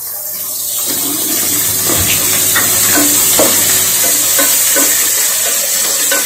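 Chopped onions sizzling in hot oil in a pan, stirred with a wooden spatula that knocks and scrapes against the pan every so often.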